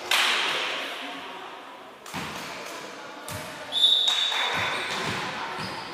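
Volleyball struck hard a few times, sharp smacks echoing around a sports hall, then a short, shrill referee's whistle about four seconds in, the loudest sound, marking the end of the rally.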